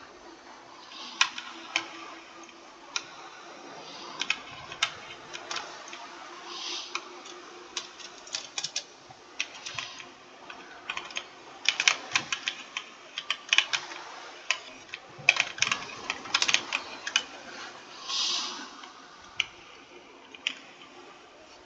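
Typing on a computer keyboard: irregular keystroke clicks, scattered at first, then quicker runs of keystrokes through the middle, with a few softer, duller key presses.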